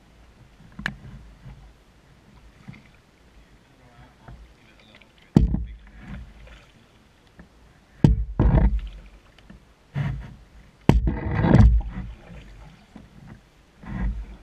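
Canoe being paddled: paddle strokes slosh water, with several sharp knocks, likely the paddle striking the canoe's hull or gunwale, about five, eight and eleven seconds in.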